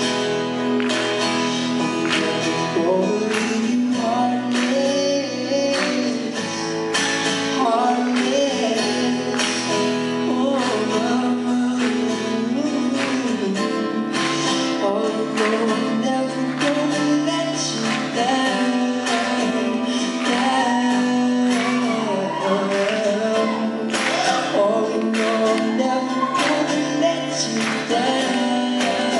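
Live acoustic song: two acoustic guitars strummed in a steady rhythm while a man sings the melody over them.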